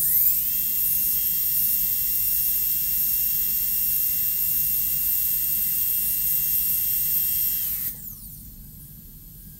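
High-speed air-turbine dental handpiece with a burr, cutting a molar's cavity preparation. It gives a steady high whine that rises to speed in the first half second, then winds down with a falling pitch about eight seconds in.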